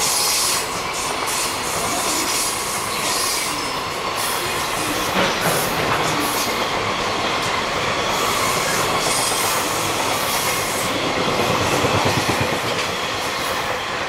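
Freight train's container flatcars rolling past at speed: a steady heavy rumble with the clickety-clack of wheels over rail joints. The sound drops away right at the end as the last wagon passes.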